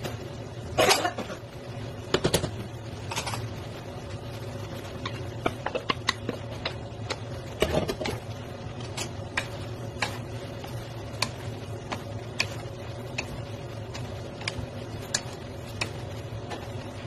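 Wooden utensils clicking and scraping against a pan while stir-fried noodles and vegetables are tossed, with a few louder knocks in the first few seconds and again about eight seconds in, over a steady low hum.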